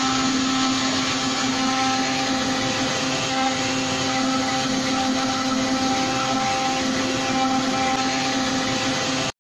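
A 3D CNC router's spindle running steadily with a constant hum, its bit carving a relief into wood. It cuts off abruptly at the very end.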